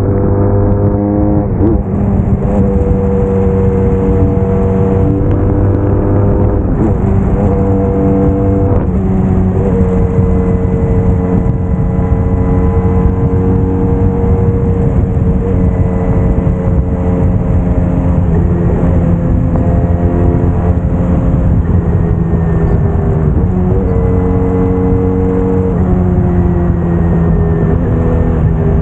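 Braaap Moto4 sport motorcycle's engine running under way at fairly steady revs, its pitch dipping briefly and recovering several times, over a steady rush of noise.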